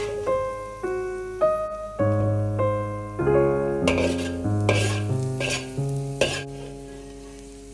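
A metal wok spatula scrapes and tosses chopped green beans around a hot oiled wok, with light sizzling and several sharp scrapes in the second half. Piano music plays throughout.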